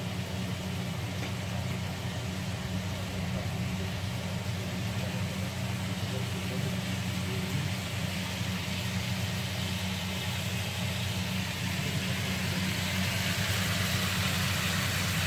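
Chicken and onion sizzling in a frying pan, over the steady low hum of a running kitchen extractor hood. The sizzle grows louder near the end.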